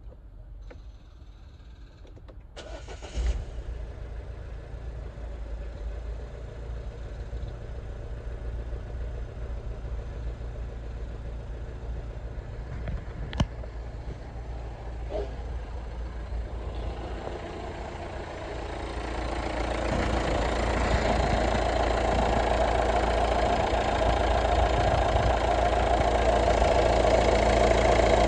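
Citroën Berlingo's engine cranked on the starter, catching about three seconds in and settling to a steady idle. A sharp click comes about halfway through. The idle grows louder over the last third as it is heard from the open engine bay rather than the cab.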